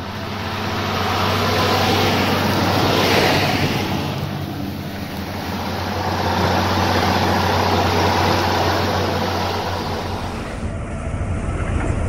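John Deere 6910's six-cylinder diesel engine working under plough load, heard from inside the cab: a steady drone that swells and eases in loudness, changing tone slightly near the end.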